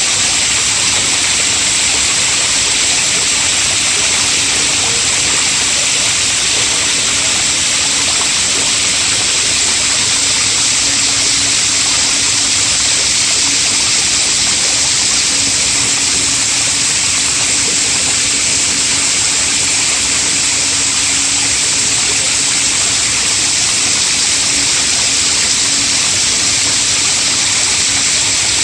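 Mall water fountain: falling water splashing with a steady, even rush, over a faint steady low hum.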